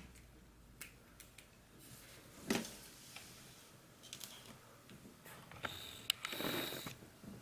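Faint handling noise on a workbench: a few small clicks, a soft knock about two and a half seconds in, and a longer rustle with a click near the end, as parts and the camera are moved about.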